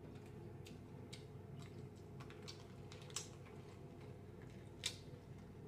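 Snow crab leg shells cracking and snapping as they are bent apart by hand: scattered faint clicks with two sharper cracks about three and five seconds in, over a steady low hum.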